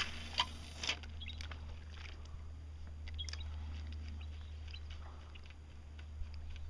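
A fishing reel being wound as a topwater mouse lure is retrieved across the water: scattered faint clicks and ticks over a low steady hum, with a short hiss in the first second.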